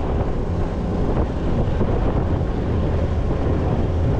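A boat's motor running steadily, with wind noise on the microphone.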